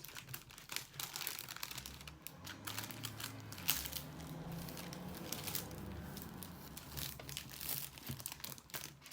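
Plastic packaging crinkling and rustling with many short crackles as a diamond painting kit is handled and unwrapped by hand.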